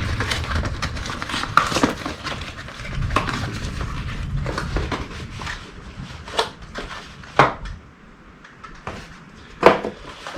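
A taped-up cardboard parts box being pulled open and its packaging handled. Dense rustling and scraping at first, then a few separate sharp clicks and knocks.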